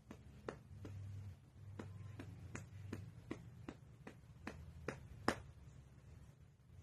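A hand lightly patting a dog's body in a steady rhythm, about two or three soft taps a second, under a faint low rumble.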